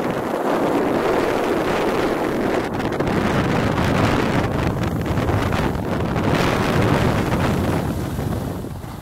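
Wind rushing over the microphone of a camera carried by a moving skier, with skis sliding over packed snow; the rush eases off near the end as the skier slows.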